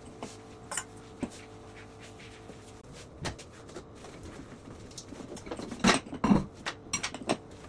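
Scattered light knocks and clicks of things being handled, over a faint steady hum. A louder cluster of knocks comes about six seconds in.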